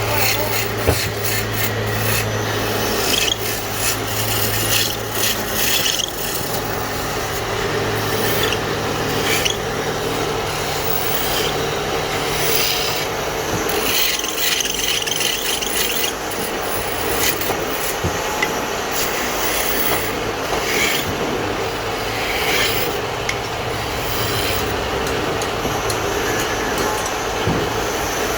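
Wood being worked by hand with irregular scraping, rasping strokes, over a steady low hum that fades about halfway through.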